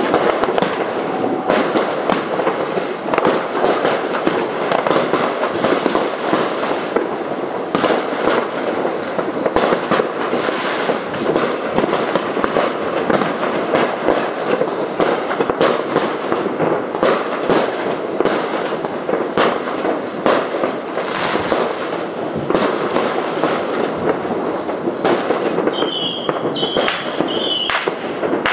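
Many fireworks going off at once across a town: a dense, unbroken mass of bangs and crackles, with short high falling whistles now and then.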